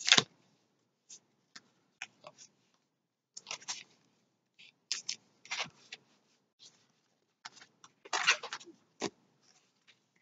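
Pokémon trading cards being picked up and handled: scattered small clicks, scrapes and rustles, with a louder cluster right at the start and another about eight seconds in.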